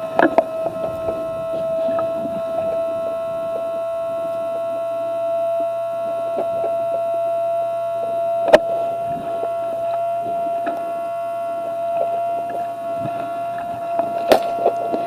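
Small battery anti-fog fan in an airsoft mask running close to the microphone, a steady whine at one pitch. A single sharp click comes about halfway through, and a few more clicks near the end.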